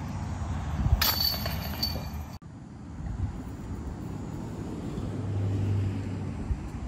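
A sharp metal clink from a disc golf basket's chains and cage about a second in, ringing briefly. Then, after a cut, a steady low outdoor rumble with a low hum that swells a little around five seconds in.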